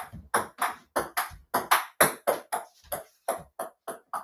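A table tennis ball bouncing over and over, about four sharp pings a second at a fairly even loudness, the bounces coming slightly faster toward the end.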